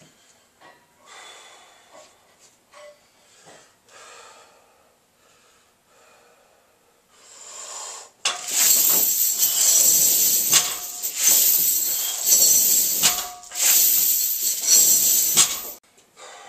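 Barbell loaded with about 120 lb of chain pulled for a fast set of speed deadlifts: the chains jangle and rattle loudly for about seven seconds, with a few sharp knocks as the plates touch down between reps, then cut off as the bar is set down. Before the set there is only faint breathing while the lifter sets up.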